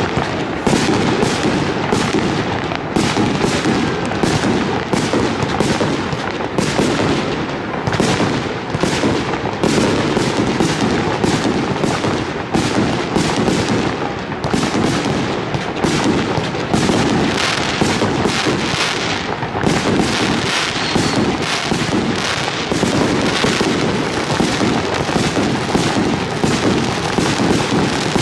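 A 150-shot fireworks battery (cake, item 6C1503C) firing continuously. It makes a rapid, unbroken string of launch thumps and bursting reports, several a second.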